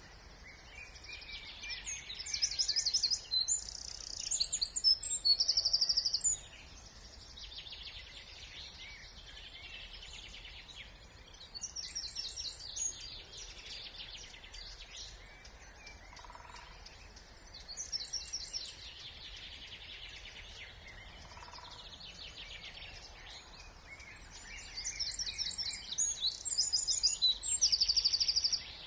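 A songbird singing loud, rapid trilled phrases in four bouts of a few seconds each, over a faint steady low background rumble.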